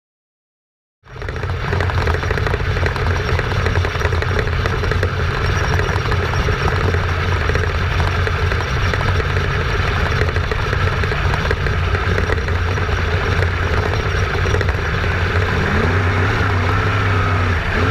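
Sprint car engine running steadily, heard from a camera mounted on the car, mixed with wind and dirt-track noise. It starts suddenly about a second in, after silence.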